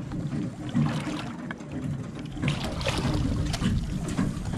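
A fish being hauled out of the sea on a gaff beside a boat's hull: water splashing and dripping back onto the surface, with a run of sharp splashes and knocks from about halfway through, over steady low wind and water noise.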